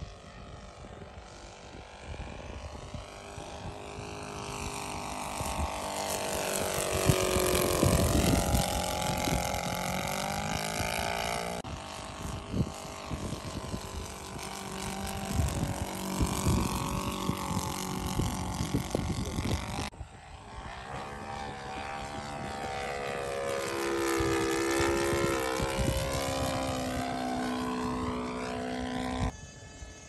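Radio-controlled scale Boeing F4B biplane's motor and propeller in flight, droning steadily as the model makes several low passes. The sound swells and fades with each pass, its pitch dropping as it goes by. The sound jumps abruptly in level twice.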